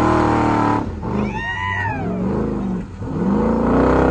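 Off-road competition 4x4 truck engine revving hard, its pitch swooping up and down again and again, with a brief drop just before a second in.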